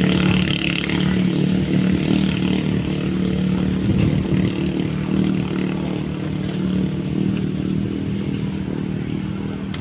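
Racing banca's engine running flat out as the boat speeds away across the water: a steady, even-pitched drone that slowly fades toward the end.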